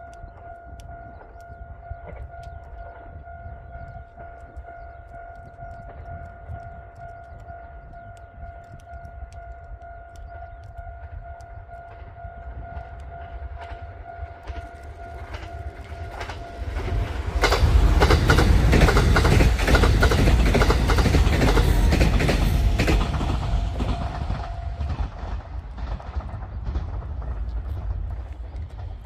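JR Kyushu KiHa 72 series 'Yufuin no Mori' diesel multiple unit approaching and passing, its engines running and its wheels clattering over the rail joints. It grows louder, peaks as it goes by, then fades away. A steady high tone sounds through the approach and stops shortly after the train has passed.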